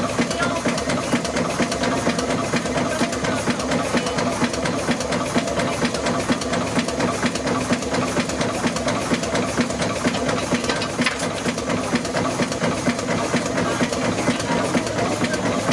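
Steam engine running steadily with a fast, even beat and a steady hum under it.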